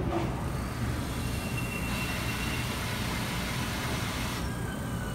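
JR Kyushu 787 series electric train pulling away along the track: a steady low rumble of wheels and running gear. A hiss rises over it about two seconds in and cuts off suddenly near the end.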